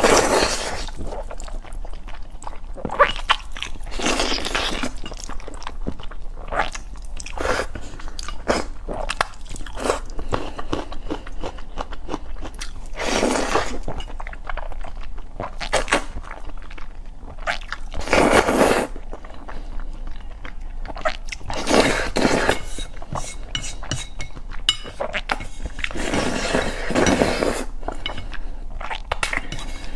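A person slurping saucy noodles in about six long, noisy slurps, with wet chewing and short mouth clicks in between.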